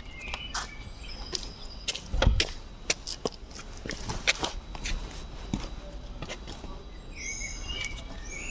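Scattered clicks and knocks of tools and metal parts being handled, with one heavier thump about two seconds in. Birds chirp in the background at the start and again near the end.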